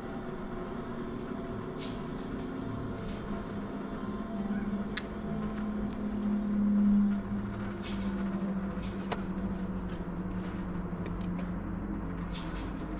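Motor vehicle engine running steadily, its pitch swelling and easing slightly about halfway through, with scattered light clicks and rattles.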